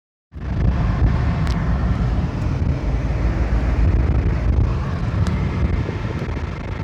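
Volkswagen up! TSI's 1.0 three-cylinder turbo petrol engine running with a steady, heavy, low-pitched noise. The owner reports this abnormal engine noise clearing up by itself after about thirty seconds.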